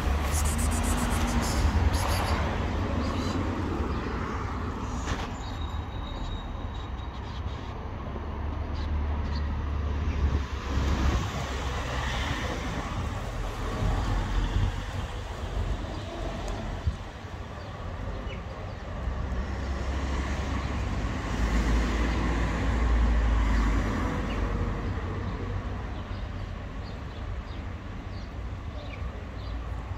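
Street traffic noise: a steady low rumble with vehicles swelling and fading past.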